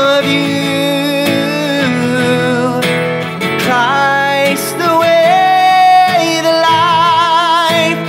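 A man singing long held notes over a strummed acoustic guitar, sliding up between notes a few times, with a wavering vibrato on a held note near the end.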